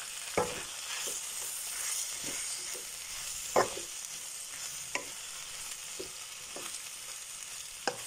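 Chopped vegetables (mushrooms, peppers, carrots) sizzling as they fry in a pan, stirred with a utensil that knocks and scrapes against the pan several times, the loudest knock about three and a half seconds in.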